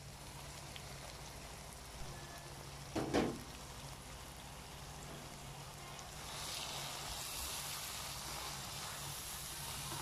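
Chilli spice paste frying in oil in a pan, a steady sizzle over a low hum, with a single knock about three seconds in. The sizzle grows louder a little past halfway, once the powdered spices are in the pan.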